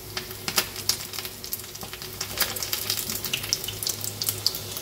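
Battered goby fish deep-frying in hot oil: a steady sizzle with frequent sharp, irregular crackles and pops.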